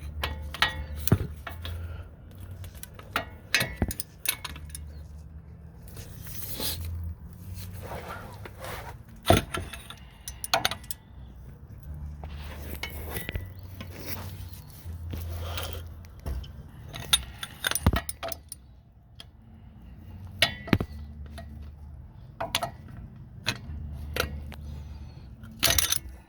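Scattered metal clinks and clicks of a ratchet and socket being worked on the bolts of a truck's wheel hub assembly, over a low rumble that comes and goes.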